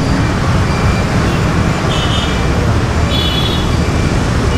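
Steady low rumble of outdoor background noise, with two brief high tones about two and three seconds in.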